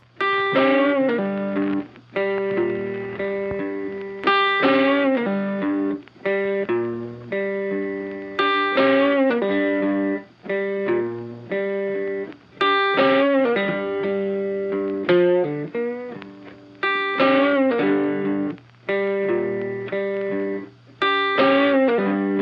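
Background music: a plucked melody whose phrase repeats about every four seconds.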